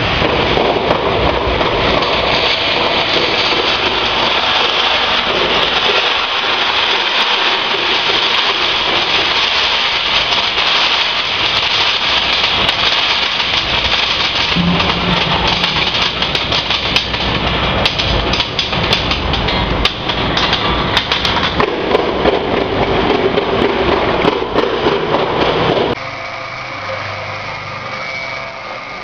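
Roasted peanuts rattling and pouring out of a drum roaster as it discharges: a dense, steady hiss of many small clicks. Near the end it stops abruptly, leaving the roaster's motor humming.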